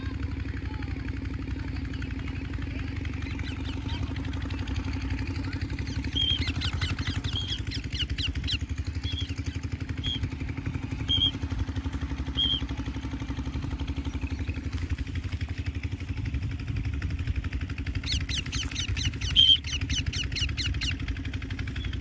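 An engine runs steadily with a low, even drone. Short bursts of high chattering bird calls come over it, one stretch about a third of the way in and another near the end.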